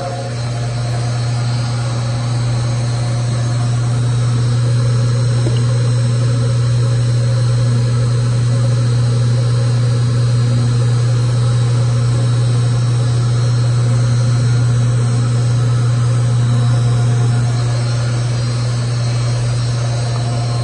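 Zumex automatic orange juicer running, a loud, steady low motor hum.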